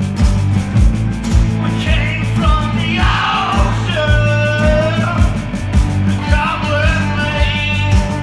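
Rock music from a guitar, bass and drums trio, with the drums keeping a steady beat under the bass and a bending melodic line above.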